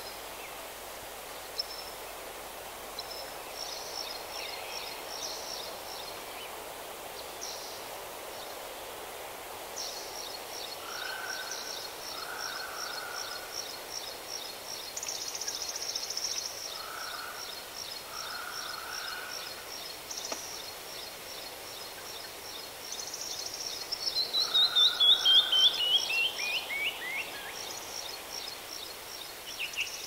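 Songbirds singing over a steady outdoor hiss: repeated high notes and a long high trill, with lower short calls here and there. Near the end, a loud run of notes falls in pitch over about three seconds.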